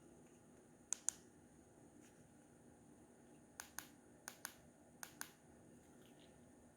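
BenQ W2700 projector running with a faint steady hum and a thin high whine. Four quick pairs of sharp clicks come about a second in and again from the middle to near the end.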